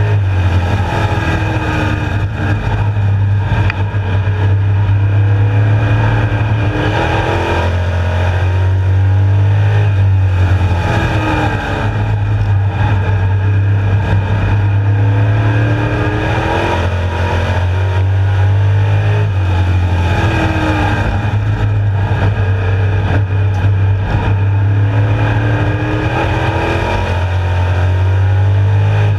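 Street stock race car's engine at racing speed, heard from inside the cockpit. It drones loudly and steadily, and its pitch climbs and drops again and again every few seconds as the car accelerates and lifts around the oval.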